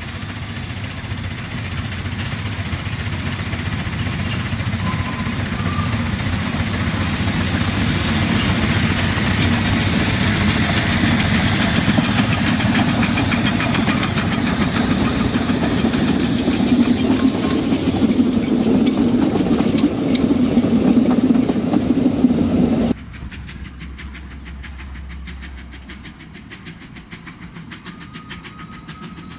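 Narrow-gauge steam locomotive hauling a train of wooden coaches, approaching and passing close by with a steady hiss of steam and the running of the train, growing louder as it nears. About three-quarters of the way through the sound drops suddenly to a much fainter, distant train.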